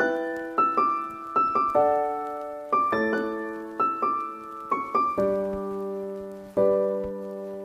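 Background music: a solo piano playing notes and chords, each struck and left to ring and fade.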